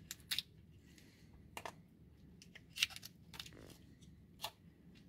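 A small plastic pill bottle being opened by hand: the screw cap is twisted off and the inner seal peeled away, giving a handful of faint, scattered clicks and scrapes.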